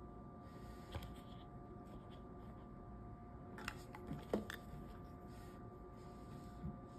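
Faint handling noises: a few light clicks and taps as a plush toy and plastic capsule are moved about on a tabletop, the busiest stretch a little past the middle, over a low steady hum.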